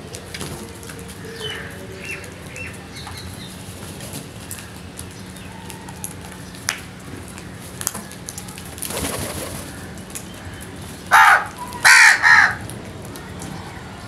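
House crows cawing: three loud, harsh caws in quick succession near the end, with a rush of wingbeats about nine seconds in.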